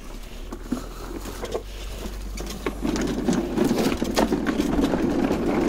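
Battery-powered Worx electric lawnmower running and cutting grass, with scattered clicks; it gets louder about three seconds in.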